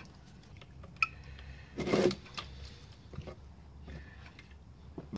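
Handling noises on a workbench: a few light clicks and one brief louder clatter about two seconds in, as a carburettor is lifted out of a plastic tub of thinner and set down on a cloth rag.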